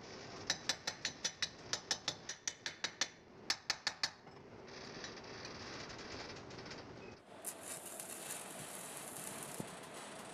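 A quick run of sharp metallic clicks, about five a second, for roughly three and a half seconds. Then a stick-welding arc hisses and crackles as a bent steel bar is tacked onto a steel pipe, turning harsher and louder about seven seconds in.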